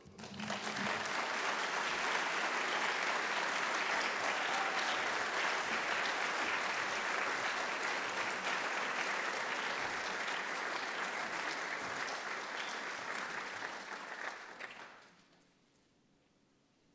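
Audience applauding, a steady clapping that dies away about fifteen seconds in.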